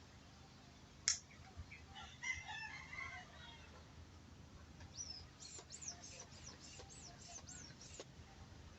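Chickens calling, with a short cluster of clucks and then a run of about nine quick, high, falling chirps. A single sharp click comes about a second in and is the loudest moment.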